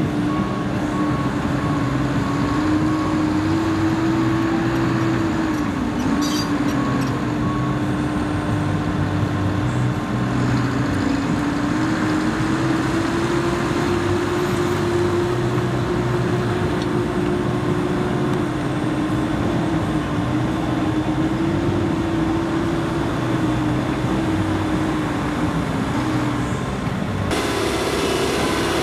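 Case CX75C SR mini excavator's diesel engine running under load as it digs, with a hydraulic whine that rises and falls in pitch as the boom and bucket work.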